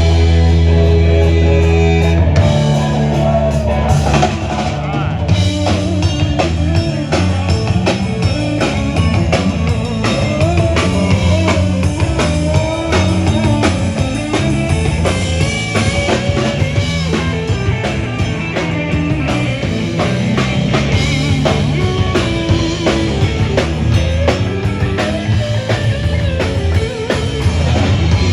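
Live rock band playing, with a drum kit keeping a steady beat under the guitars and bass.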